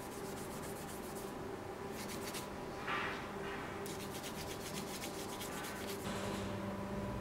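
Hand-sanding a small metal sword fitting: rapid back-and-forth scraping strokes of abrasive on metal, coming in several short bouts, with one louder stroke about three seconds in.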